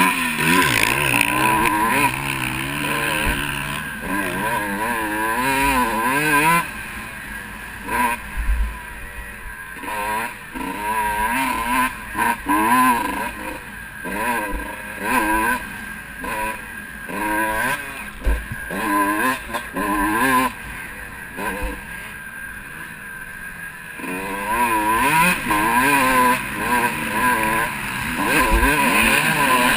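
Onboard sound of a Kawasaki KX125 two-stroke single-cylinder motocross bike's engine, revving up and falling back again and again as the throttle is opened and shut around the track. Through the middle the revs come in many short bursts, and for the last few seconds it pulls harder and louder.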